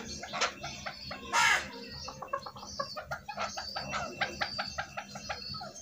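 Chukar partridges clucking in a quick series of short chuck notes, with one louder, harsher call about a second and a half in.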